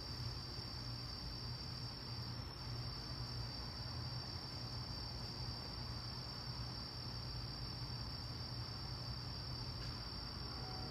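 Crickets chirping in a continuous night chorus, one steady high trill that doesn't change, over a faint steady low hum.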